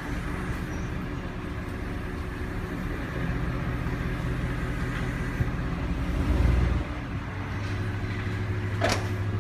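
Tow truck engine running steadily with a low hum, swelling briefly about six and a half seconds in, with a sharp knock near the end.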